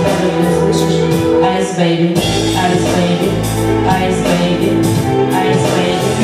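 A woman singing karaoke into a microphone over a backing track with a steady beat.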